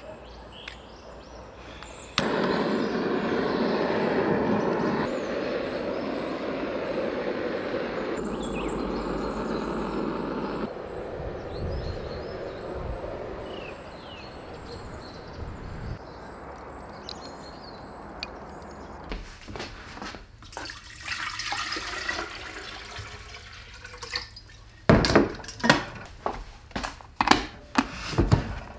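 Running water splashing, loudest for several seconds near the start and then quieter, followed by a series of sharp knocks near the end.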